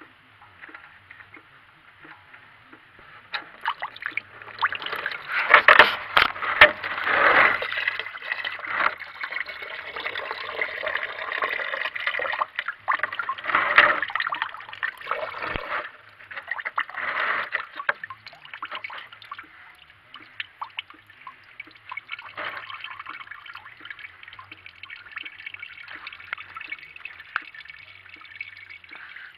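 Engine coolant pouring out of an opened drain plug on a Mitsubishi Colt, splashing and trickling as the cooling system drains. It starts about three seconds in, is heaviest in the first few seconds, and eases to a steadier trickle.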